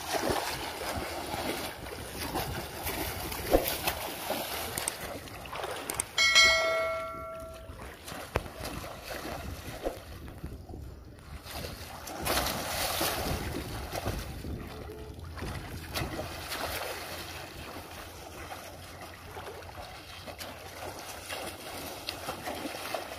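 Water sloshing and splashing around people wading in shallow muddy water, in uneven waves with scattered small knocks. About six seconds in, a sharp hit is followed by a short ringing tone lasting about a second.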